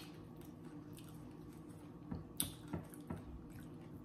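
Eating tortilla chips with taco dip: a few short crunches and wet clicks about two to three seconds in, over a faint steady hum.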